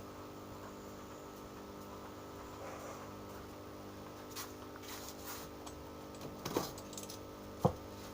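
Steady electrical hum with a few light clicks and knocks, the sharpest near the end.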